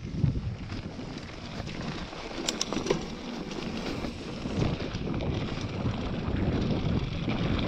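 Mountain bike rolling down a dry, rocky dirt trail: tyres crunching over loose dirt and stones under steady wind noise on the microphone, with a few sharp clicks and rattles of the bike near the middle.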